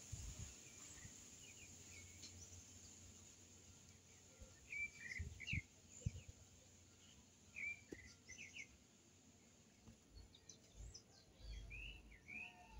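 Faint bird chirps in a few short bouts over quiet background noise, with a couple of low thumps about halfway through.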